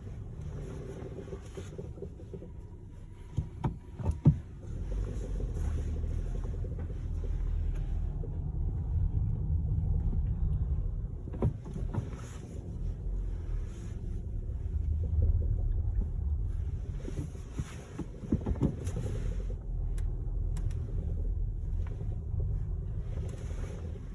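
SEAT Ateca driving with a low steady rumble, broken by sharp knocks: a quick run of four about four seconds in, then a few more further on. The knocks are the car's knocking fault.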